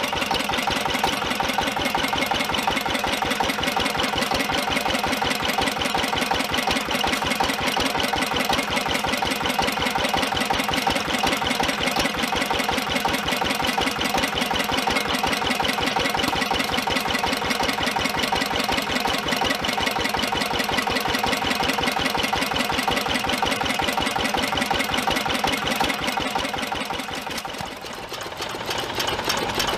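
Vintage hit-and-miss stationary gas engine with twin spoked flywheels running steadily, a fast, even mechanical clatter. Near the end the sound briefly dips and then picks up again.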